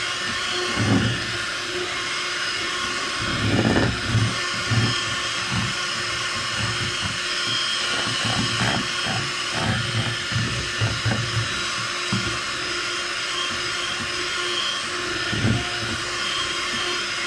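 Electric hand mixer running steadily at speed, its beaters whipping powdered whipped-cream mix with milk in a bowl, with scattered low knocks and thuds, a cluster of them in the middle stretch.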